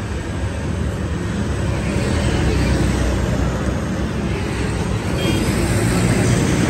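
Steady low rumble of background vehicle noise.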